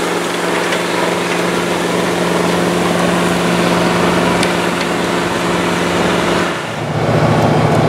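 Diesel engines of Massey Ferguson four-wheel-drive tractors running steadily under load as they pull a 20-bottom plow through the soil. About six and a half seconds in, the sound changes abruptly to a louder, lower, pulsing engine sound.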